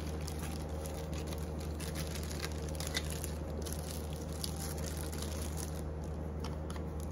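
Plastic bag crinkling and faint clicks as a bundle of metal broom-handle tubes is handled in its wrapping, over a steady low hum.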